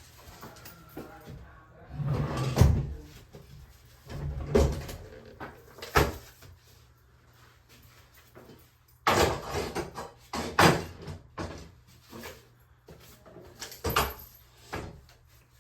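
A series of irregular knocks and bumps with short scraping sounds between them, from things being handled and moved, such as a cabinet door or objects being set down.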